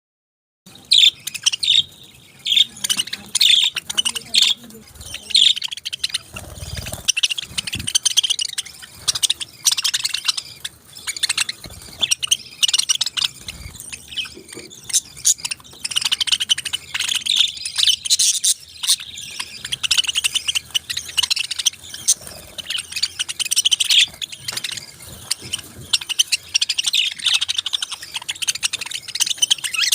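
Several pet parakeets chirping and twittering densely and without pause, with a few dull low thumps in the first half.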